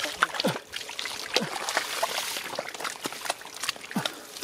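Wet mud and shallow muddy water splashing, trickling and squelching as gloved hands dig through a canal bed and rubber boots move in the mud. It comes as many short wet smacks and splatters, with a few brief falling squelches.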